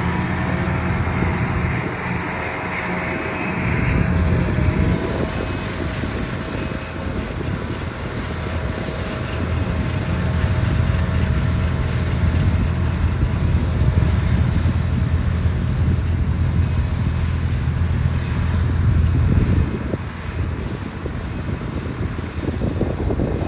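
A John Deere self-propelled forage harvester running while chopping silage: a steady low engine drone that grows louder in the middle and drops back about twenty seconds in.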